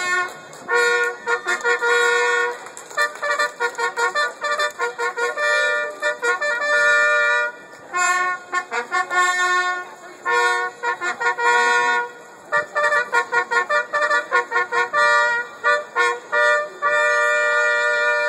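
Long straight herald trumpets playing a loud fanfare: runs of quick repeated short notes alternating with longer held notes.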